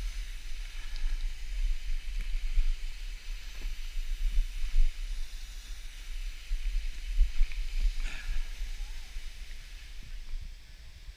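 Wind buffeting a small action-camera microphone: an uneven low rumble that rises and falls in gusts, over a steady faint hiss.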